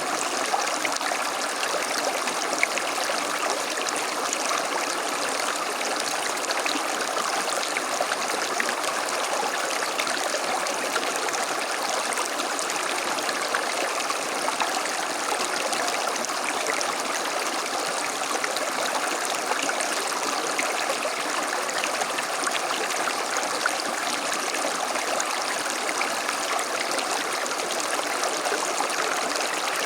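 A small stream running and babbling steadily over stones, an even rushing with fine trickling and splashing detail.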